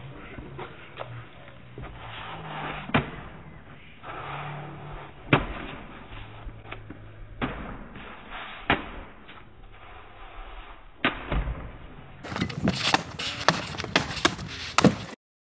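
Sharp cracks of blade cuts through bamboo targets, about five of them spread out a couple of seconds apart. Near the end comes a quicker run of sharp cracks and knocks, which stops abruptly.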